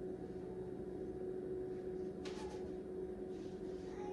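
Quiet kitchen room tone with a steady low electrical hum, and a brief faint rustle about two seconds in.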